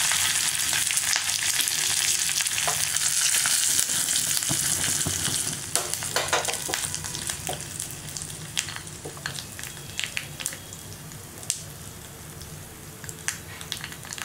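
Curry leaves and dried red chillies sizzling in hot oil for a South Indian tempering. The hiss is loud for about the first five seconds, then dies down into scattered pops and crackles.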